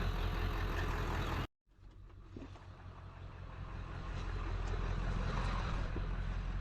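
Vehicle running with a steady low rumble of engine and road noise. It cuts out abruptly about a second and a half in, then fades back up.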